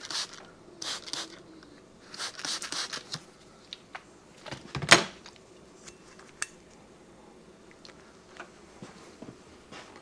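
Light handling sounds of a small part being worked with: brief rustles and clatter, then one sharp click about five seconds in and a few faint ticks.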